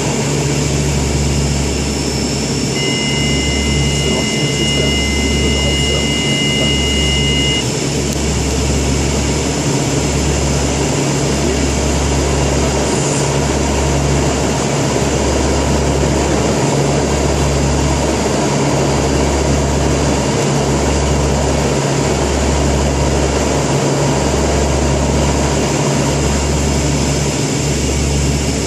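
Twin Pratt & Whitney Canada PW123 turboprops and propellers of a Dash 8-200 running steadily in flight on approach, a loud drone with a low, regularly beating throb. About three seconds in, a steady high two-pitch tone sounds for about five seconds.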